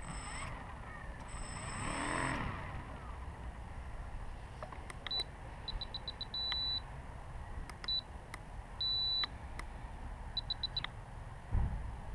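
Spektrum DX6i radio transmitter beeping: runs of short, high beeps broken by a couple of longer ones, the sound of its trim switches being stepped.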